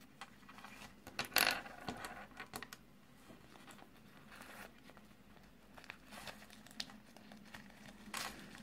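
A crinkly printed wrapper being handled and torn open by hand: irregular bursts of crinkling and tearing, the loudest about a second in and another near the end, with a few small clicks in between.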